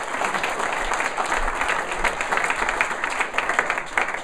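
Audience applauding: many hands clapping at once in a steady patter, fading away near the end.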